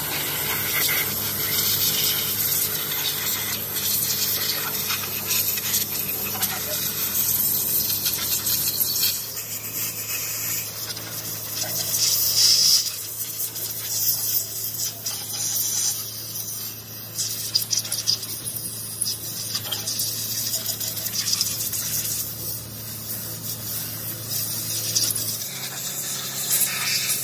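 Compressed-air blow gun hissing in long blasts that swell and ease as it blows out a stripped Toyota 1KZ-TE diesel engine block, with a steady low hum underneath.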